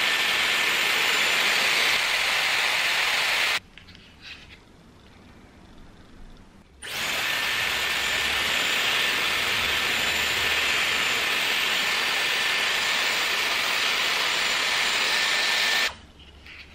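Dyson Airwrap hair styler running with hair wrapped around its curling barrel: a steady rush of air with a thin high whine. It cuts out about three and a half seconds in, starts again about three seconds later, and stops just before the end.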